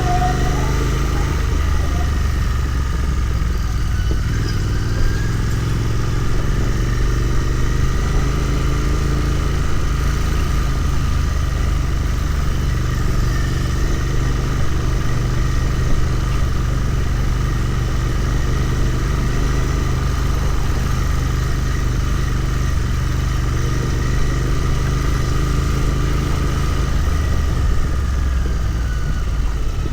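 Royal Enfield Continental GT 650's 648 cc parallel-twin engine running steadily while the motorcycle is ridden, with only gentle rises and falls in pitch.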